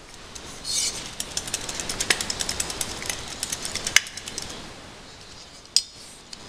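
Metal windscreen wiper arm and blade being handled and flexed, giving a brief scrape and then a quick run of light clicks and rattles. A few sharper clicks stand out, the loudest about four seconds in and another near the end.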